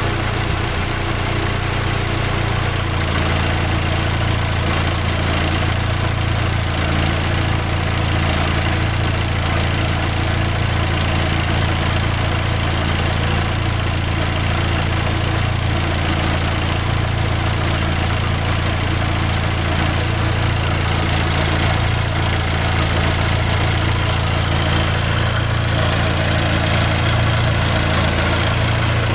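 Fiat Palio Fire 8-valve four-cylinder engine idling steadily, run to circulate water through the cooling system while it is being flushed.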